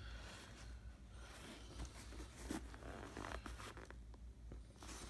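Faint rustling and scraping as a pair of sneakers is handled and turned over in their cardboard shoebox, with a few soft ticks among the rustles.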